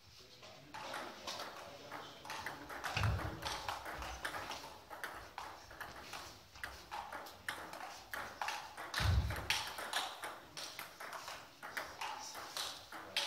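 Table tennis ball clicking back and forth off bats and table in rallies, in an irregular patter of sharp ticks. Two short low thuds, about three and nine seconds in.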